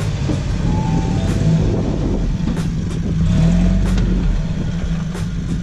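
Toyota Tacoma pickup's engine running steadily under load as the truck crawls over a dirt mound, swelling a little about halfway through, with a few sharp clicks.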